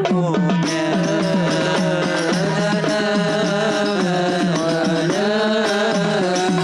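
Sholawat music: a melodic passage with sliding ornamented notes over a steady low drone.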